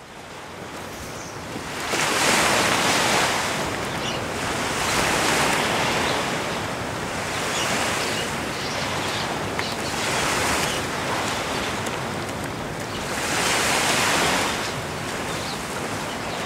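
Sea waves breaking on the shore, each surge swelling up and washing back every few seconds. The sound fades in over the first two seconds.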